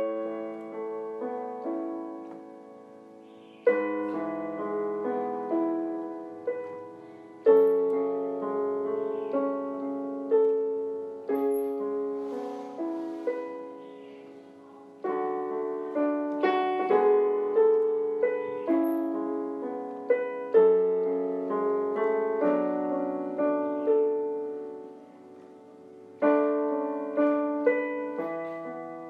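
Solo piano music: a slow piece of struck notes and chords that ring and fade, with a fresh phrase starting every few seconds.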